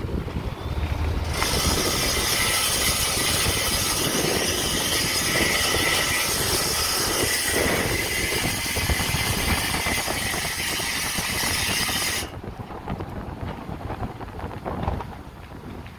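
Ford EcoBoost engine making a high-pitched screeching noise that starts suddenly about a second in, holds steady for about eleven seconds, and cuts off suddenly, over a low running rumble.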